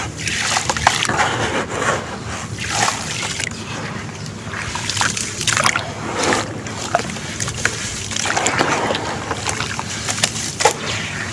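Crunchy white cement lumps being crumbled and squeezed by hand, giving a continuous gritty crunching broken by frequent sharp cracks.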